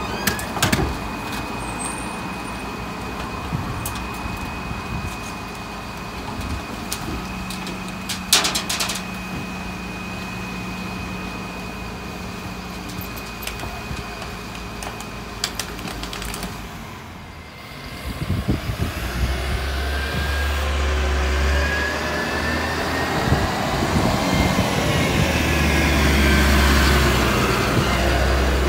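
Rear-loader refuse truck's diesel engine running at a standstill with a steady high whine and a few sharp knocks. After a brief dip, a heavy truck engine pulls away, its pitch rising as it revs through the gears and getting louder as it comes closer.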